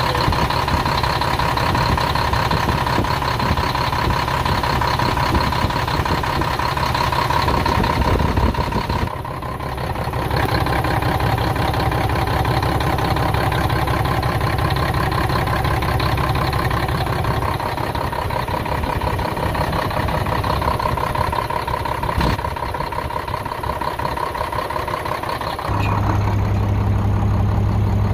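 Cummins M11 inline-six diesel engine idling steadily after its first start following a new cylinder head, injectors, rocker assembly and jake brakes, running with the valve cover off; it sounds good. The sound changes abruptly twice, ending in a steadier low hum.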